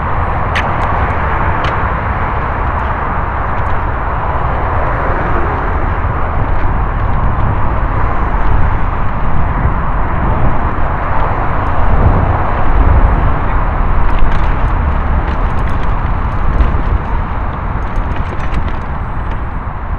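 Mountain bike ridden along a dirt forest trail, heard from a camera on the bike or rider: steady wind rush and rumbling tyre noise, with scattered sharp clicks and rattles. The rumble swells about halfway through.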